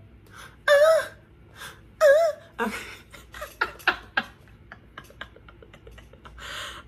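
A woman's voice: two short sung notes with a wavering pitch, then laughter broken by soft clicks, and a breathy exhale near the end.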